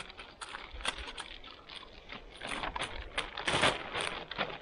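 Clear plastic bag crinkling and rustling as it is handled and opened: an irregular run of sharp crackles, with a louder rustle a little past three seconds in.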